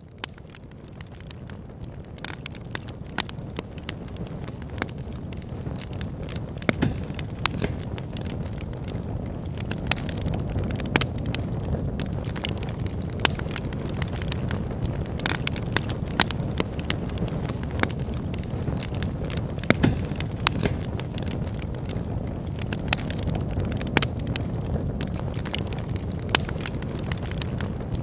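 Quilled paper artwork burning: a steady low rush of flame with sharp crackles and pops scattered throughout. It grows louder over the first several seconds as the fire takes hold.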